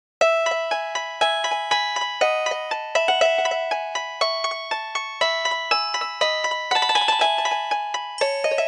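LG BX4170 mobile phone playing a polyphonic ringtone: a piano-like electronic melody of quick notes, about four a second. It starts suddenly after silence, and more notes layer in near the end.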